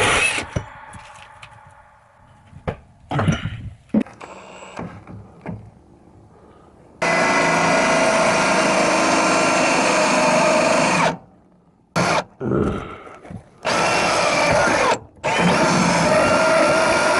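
A power tool motor running in bursts: a few knocks and clatter at first, then a run of about four seconds, a couple of short starts and stops, and running on again near the end.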